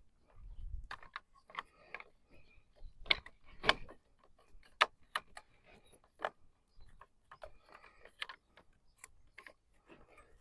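Water filter housing being tightened with a wrench: irregular clicks, knocks and short scrapes of the wrench working on the housing, a few louder clicks in the middle.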